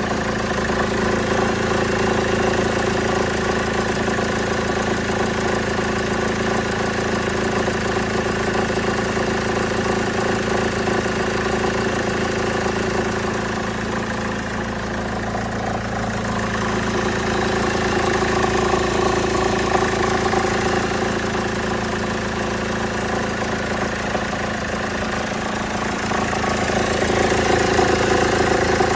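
Car engine idling steadily with an abnormal rattling noise from the drive belt tensioner.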